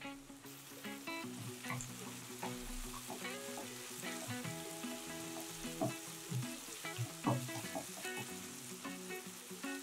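Chopped onions sizzling in hot oil in a non-stick kadai, with the hiss growing about half a second in. A wooden spatula stirs them, adding light scraping knocks against the pan.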